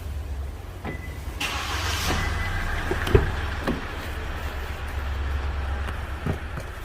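Hyundai Staria van running with a steady low rumble. A hiss comes in about a second and a half in, and there is a single knock about three seconds in.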